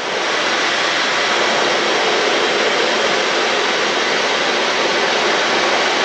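Dyson Supersonic hair dryer running, a steady rush of hot air blown at close range onto a damp mat.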